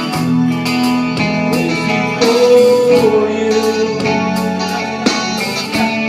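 A live band playing a slow ballad, with guitar to the fore and sustained, gliding notes between sung lines.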